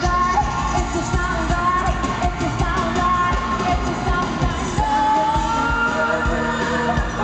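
Live pop music: the group's women singing over a loud full band with a steady drum beat, heard in a large hall.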